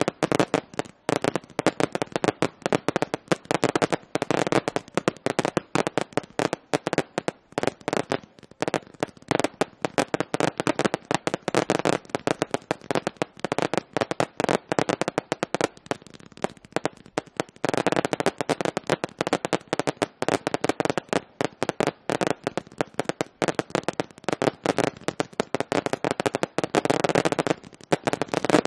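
Fireworks display: a dense, rapid, unbroken string of bangs and crackles as many comets are fired into the air and break into stars. The barrage is thickest about two-thirds through and again near the end.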